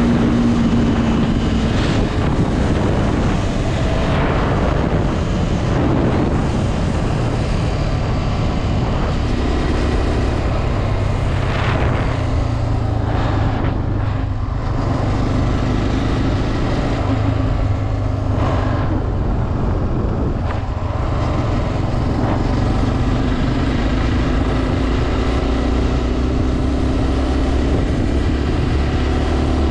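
Honda CB 250F Twister's single-cylinder four-stroke engine running steadily as the motorcycle rides along, its pitch rising slowly near the end.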